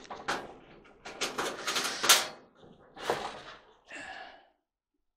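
Irregular clicks and knocks of a screwdriver and small metal hardware being handled at the terminal of a clothes dryer heating element on its sheet-metal heater plate, the loudest knock about two seconds in.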